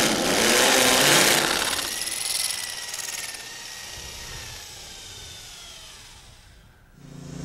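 Rotary hammer drill with a carbide-tipped masonry bit hammer-drilling into a concrete pad, loud until about a second and a half in. The drilling then stops and the drill's motor whine slowly falls in pitch as it spins down.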